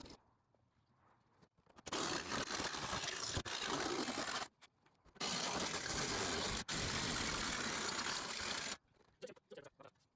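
Jigsaw cutting through the van's sheet-metal roof in two runs of about two and a half and three and a half seconds, stopping briefly between them, the blade bouncing on the metal.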